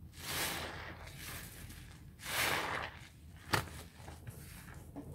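A sponge full of Ajax suds being squeezed and pressed in a sink of soapy water, rinsing out the cleanser. It gives two wet squishing swells about two seconds apart, then a single sharp smack about three and a half seconds in.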